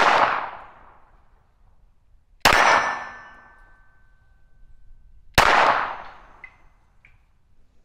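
Three 9mm pistol shots from a SIG P320 Spectre Comp, about three seconds apart, the first right at the start, each trailing off over about a second and a half. The pistol is cycling and firing without jamming.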